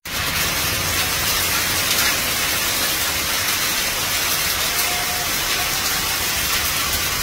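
Heavy rain pouring down during a thunderstorm: a steady, dense hiss with no break.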